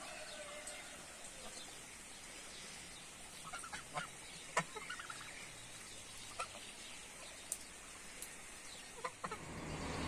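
Domestic hens clucking with a few short, scattered calls over a faint steady hiss; near the end a louder rushing hiss rises.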